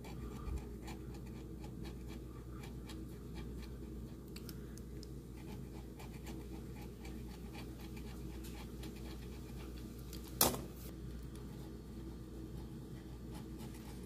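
Scratch-off lottery ticket being scratched with the tip of a pen: a steady run of light, quick scratching strokes over a low background hum, with one sharp click about ten seconds in.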